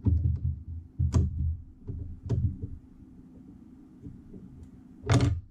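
Handling noise at a fly-tying bench: a few dull knocks and sharp clicks of tools and the vise being moved and set, the last one, near the end, the loudest.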